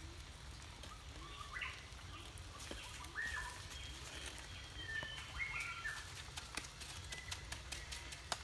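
Small birds calling with short chirps and whistles. From about two-thirds of the way in there are quick sharp taps and scrapes of a steel trowel working mortar on concrete blocks.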